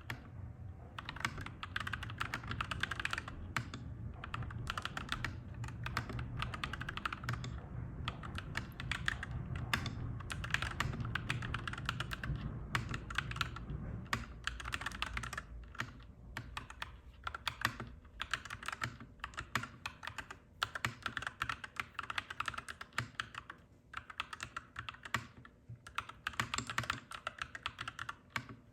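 Clacky mechanical keyboard being typed on in quick runs of keystrokes with short pauses between them. A low rumble sits under the typing for the first half and fades out about halfway through.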